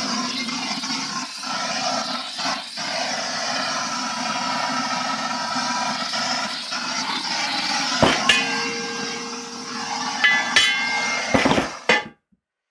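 Hand-held gas blowtorch burning steadily with its flame played into the open end of a cut-down steel gas bottle, a continuous rushing hiss. In the second half come a few sharp metallic clinks on the steel that ring briefly, and the sound cuts off suddenly near the end.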